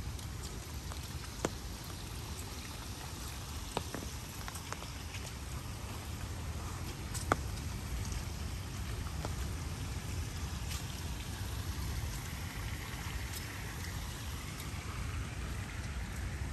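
Light rain falling on leaves and paving, with scattered drips and three sharper drop hits about 1.5, 4 and 7 seconds in, over a steady low rumble.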